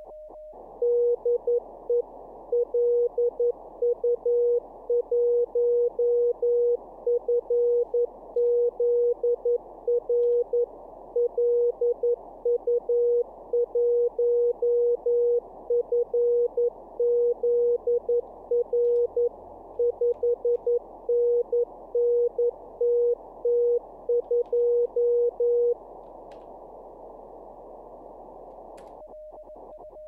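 Simulated Morse code (CW) from the Morse Runner contest simulator: a calling station's keyed tone, a little under 500 Hz, sends dits and dahs for about 25 seconds over a steady hiss of band static. The static runs on alone for a few seconds. Near the end a second keyed tone at a slightly higher pitch starts.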